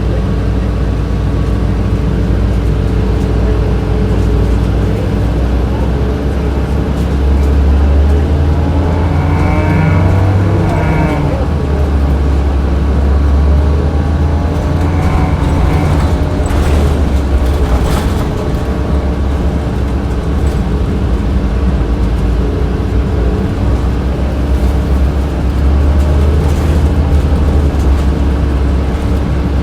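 Cabin sound of a 2007 Orion VII diesel transit bus under way, recorded by its HVAC unit: a steady drone from the air-conditioning and engine, carrying several steady tones. The low engine rumble swells several times as the bus pulls away, and a few sharp rattles or knocks come around the middle.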